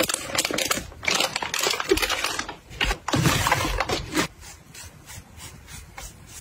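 Crinkling and rustling of clear plastic packaging bags being handled and slid into a paper bag, loud and dense for the first four seconds or so. After that come quieter, soft strokes of a fluffy brush on a clear plastic nail box.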